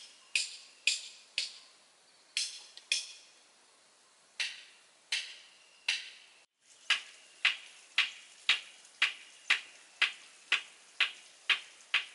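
A series of sharp, short knocks with a bright, slightly ringing top: scattered at first, then steady at about two a second after a brief break near the middle.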